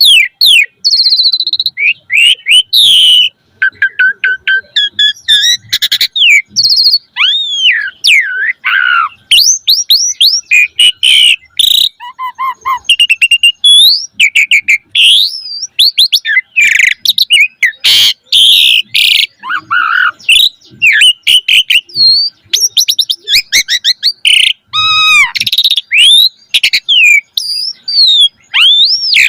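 Pied starling (jalak suren) singing in full voice: a fast, unbroken jumble of loud whistles, rising and falling glides, rapid trills and sharp clicks, packed with varied fill-in phrases.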